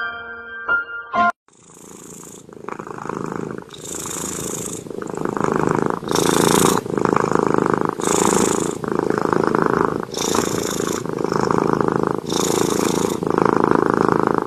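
A cat purring steadily, the purr swelling about every two seconds. A short phrase of plucked music ends about a second in, just before the purring starts.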